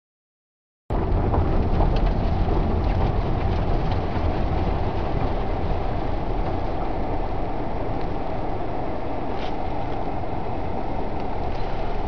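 Steady rumble and rush of a car driving through strong wind and blowing snow, heard from inside the cabin. It starts suddenly about a second in.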